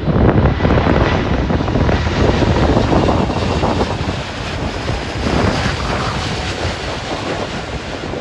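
Airbus A350-900's Rolls-Royce Trent XWB jet engines at take-off power as the airliner climbs out overhead, a steady loud rush slowly fading as it moves away. Gusty wind buffets the microphone.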